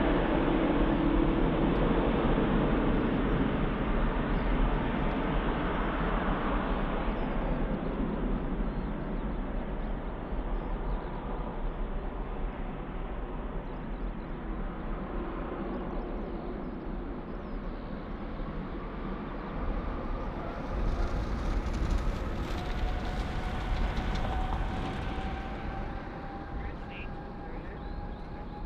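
Jet airliner engines: a loud rushing noise that fades after about seven seconds, then a thin engine whine slowly rising in pitch through the second half, with a short burst of hiss a little past the middle.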